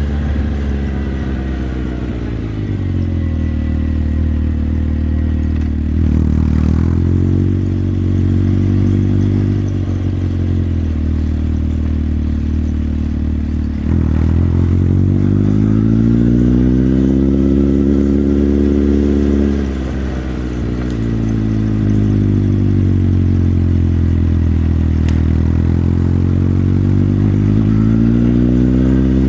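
Motorcycle engine running under way. Its pitch drops about two seconds in, then rises again about halfway through and once more near the end, as the rider eases off and opens the throttle.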